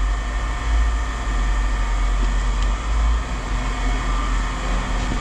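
Steady low engine rumble, like a vehicle or machine idling.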